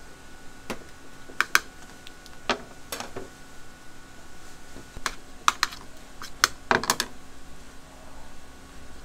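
Irregular sharp taps and clicks from hand-wrapping dumplings: the metal filling spatula knocking against the plate and work table, in little clusters of two or three, over a faint steady hum.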